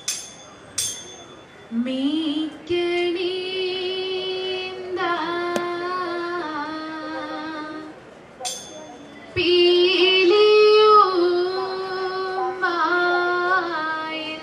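Girls singing a Malayalam Margam Kali song in phrases held on long, steady notes, with a pause between phrases about two-thirds of the way through. A few sharp, ringing strikes mark the beat: one right at the start, another a second later, and one just before the singing resumes.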